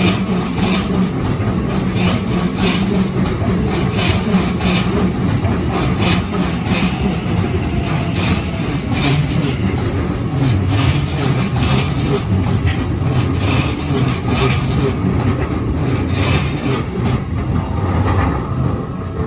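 Keikyu Line electric train passing over a level crossing: a steady low rumble with repeated clacks throughout, easing off near the end.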